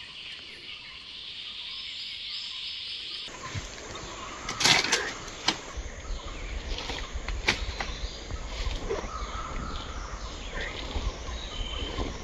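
A steady high hiss of forest ambience stops abruptly about three seconds in. It gives way to rustling and crackling of dry leaf litter and a jacket being handled and pulled off, loudest just under two seconds later, over a low rumble.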